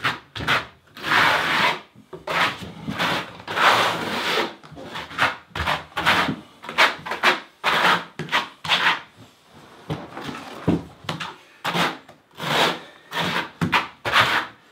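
Steel trowel scraping loose thin-set mortar across a plywood subfloor in a series of irregular back-and-forth strokes, some short and some longer.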